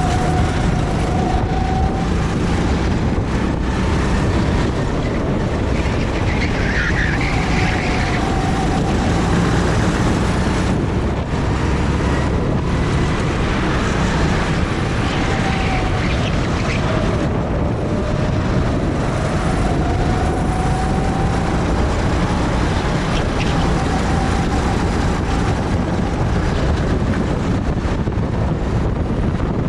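Steady wind noise on the microphone, rumbling in the low end throughout, with a faint engine whine from go-karts on the track rising and falling in pitch now and then.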